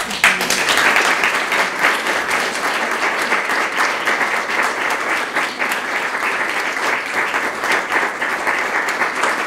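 Audience applauding steadily, many hands clapping at once, starting suddenly and running on without a break.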